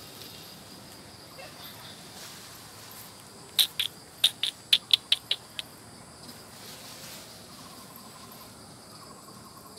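Steady high-pitched insect chorus in trees, interrupted in the middle by a quick run of about ten loud, sharp chirps over two seconds.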